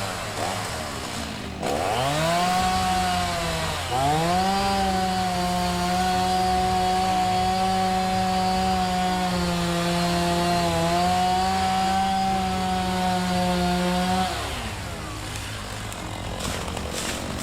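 Chainsaw idling, then revved up about two seconds in, dipping briefly and revving again, and held at full throttle at a steady high pitch for about ten seconds before dropping back to idle near the end.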